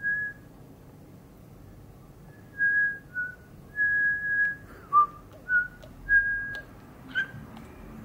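A series of about eight short, pure whistled notes, most held at one steady pitch, a few dipping lower. A brief sharper chirp comes near the end.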